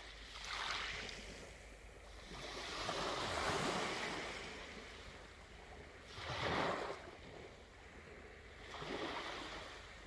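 Small waves breaking and washing up a sandy beach strewn with pebbles, swelling and fading about four times, the loudest just past six seconds in.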